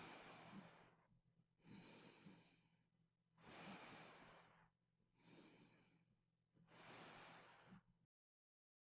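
Faint, even breathing of a sleeping person: about five soft, airy breaths, with no snoring. The breathing cuts off abruptly about eight seconds in.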